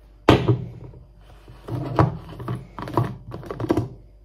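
Knocks and plastic clatter of a Tenker personal blender's cup being handled: a sharp knock about a third of a second in as the cup is set down on the worktop, then irregular clunks and clicks as the blade base is twisted off the cup.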